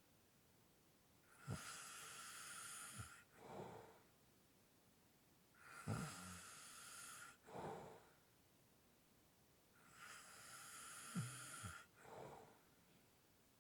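A person sleeping and snoring lightly with heavy breathing. There are three slow breaths about four and a half seconds apart. Each is a long noisy breath of about two seconds with a short low snore at its start, followed by a briefer, softer breath, with quiet pauses between.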